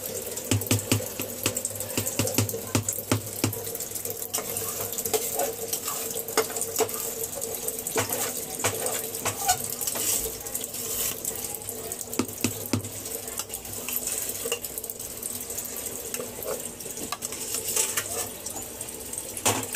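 Metal kitchen utensils clinking and scraping against a pot: many small sharp clicks scattered throughout, over a steady low hum.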